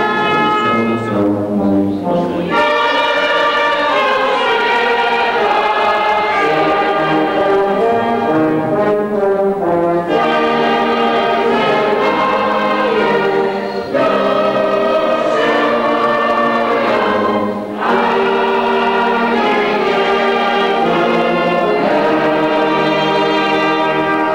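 Sacred choral music: voices sing held chords in phrases of a few seconds, with short breaks between phrases.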